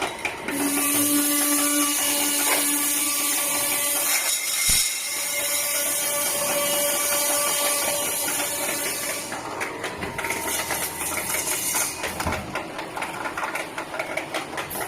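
Steel pipe bundle cutting machine running: a steady high hiss for most of the first nine seconds, then uneven clattering and knocks to the end.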